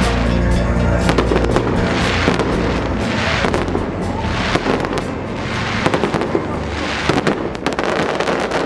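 Fireworks display going off in quick succession: dense popping and crackling, with several swells of crackle from bursting shells. Music plays underneath in the first seconds.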